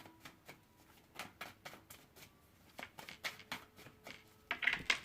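Tarot cards being shuffled by hand: an irregular run of short card clicks and flicks, with a louder flurry near the end.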